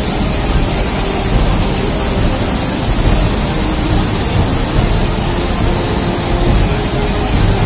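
Floodwater rushing down a wadi: a loud, steady rush of noise with a deep rumble underneath.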